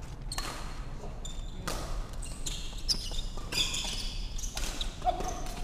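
Badminton rally on a wooden hall court: several racket strikes on the shuttlecock about a second apart, with short high squeaks of court shoes on the floor between them.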